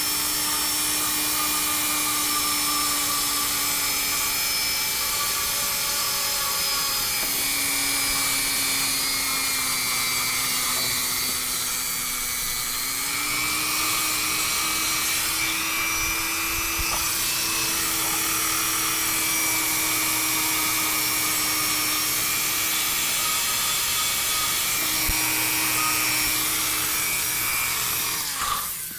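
A Dremel rotary tool with a small sanding stone runs with a steady high whine, sanding a thickened join in PLA 3D-printer filament smooth. Its pitch dips and rises a little now and then as the stone is pressed on and eased off the plastic, and the motor stops right at the end.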